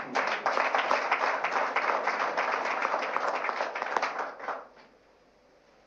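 Audience applauding, many hands clapping at once, fading out about four and a half seconds in.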